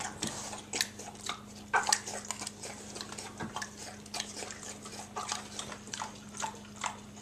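Pet pig eating vanilla ice cream: irregular wet smacking and chewing clicks as it laps and chomps, with a few louder smacks about two seconds in.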